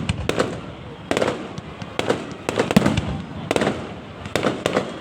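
Fireworks display going off: volleys of sharp bangs and crackles, coming in clusters about once a second.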